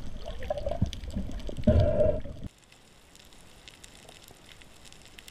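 Underwater sound picked up by an action camera in its housing: a loud low rumble of water movement, with knocks and a couple of short moaning tones, while the diver handles a speared fish. About two and a half seconds in it cuts off suddenly to a quiet underwater hiss with faint scattered crackling clicks.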